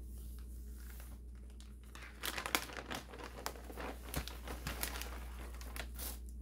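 Clear plastic bag crinkling and crackling as it is pulled open and a folded T-shirt is slid out, starting about two seconds in and going on in a busy run of sharp crackles until near the end.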